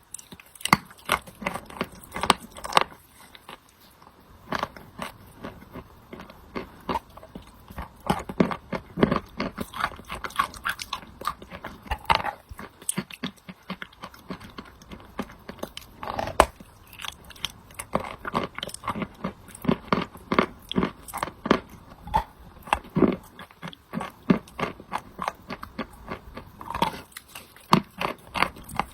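Wet chalk with clay paste being bitten and chewed: an irregular run of sharp crunches and clicks, several each second, with a couple of brief pauses.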